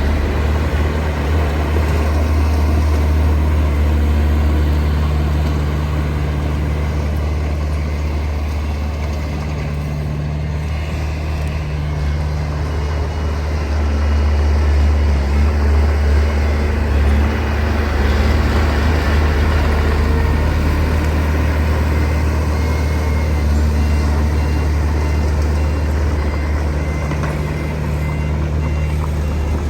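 Heavy diesel earthmoving machinery running steadily under load, its deep engine drone swelling and easing. In the last several seconds a reversing beeper starts beeping steadily.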